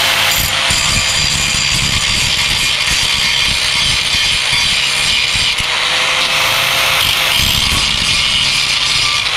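Electric angle grinder running with its disc pressed against the cut end of a motorcycle's underbelly exhaust pipe, grinding it level. A steady high motor whine sits under a harsh grinding hiss that swells and eases as the disc bites into the metal.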